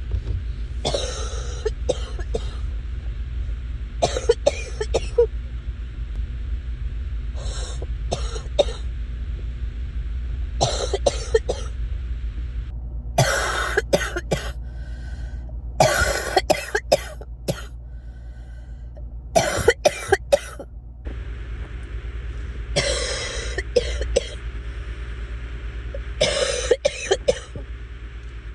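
A person coughing in repeated bouts, each a quick run of two to four coughs, about nine bouts a few seconds apart: the congested coughing of someone sick with sinus congestion. A steady low hum runs underneath.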